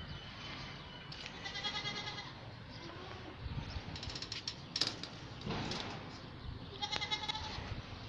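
Goats bleating: three short, quavering bleats a couple of seconds apart, with a sharp click near the middle.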